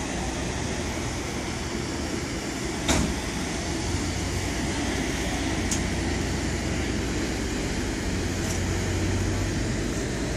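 Steady low hum of an idling engine under general street noise, with a sharp click about three seconds in and two fainter ticks later.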